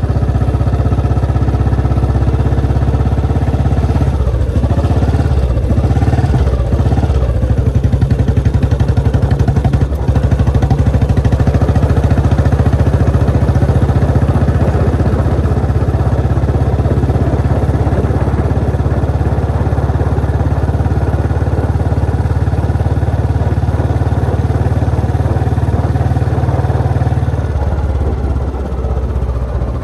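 Old Royal Enfield Bullet's single-cylinder engine thumping steadily under way, easing off near the end.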